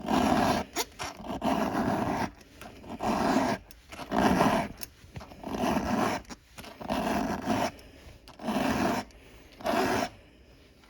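Round file rasping across a chainsaw chain's cutter tooth in about ten even strokes, roughly one a second, stopping near the end. The filing is raising a burr on the cutting edge, the sign that the tooth is nearly sharp.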